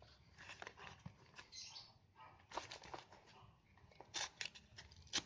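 Faint crinkling and rustling of a plastic-wrapped delivery package being handled and opened, with scattered sharp clicks and short rustles.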